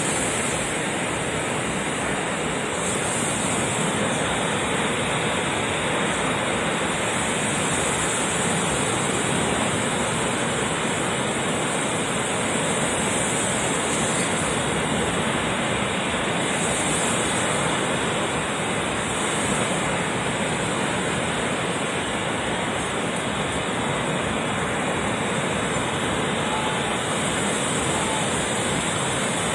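Ocean surf: a steady rushing of waves breaking along a sandy shore.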